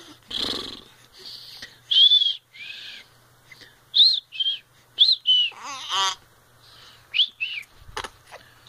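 Newborn baby making a string of short, high-pitched squeaks, each rising then falling, with one longer rising squeal about six seconds in.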